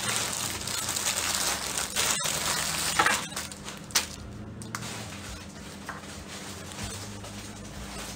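Clear plastic clothing bags crinkling and rustling as they are handled, loudest in the first three seconds, with two sharp clicks around three and four seconds in, then quieter rustling.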